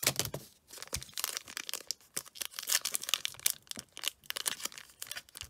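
Foil wrapper of a six-card Panini Prizm Draft Picks trading-card pack crinkling and crackling in many quick, irregular crackles as hands pull and tear it open. The wrapper is stiff and does not want to come apart.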